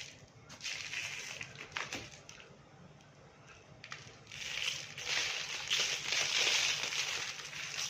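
Dry red clay crumbling and being crushed: gritty crunching in two spells, a short one about half a second in and a longer, louder one from about four and a half seconds in.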